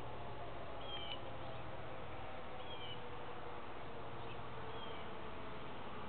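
Outdoor civil defense warning siren sounding in a drill, its wail sliding slowly down in pitch, with a few short high chirps over it.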